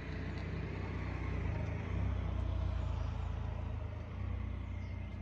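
An engine running with a low, steady rumble, a little louder about two seconds in.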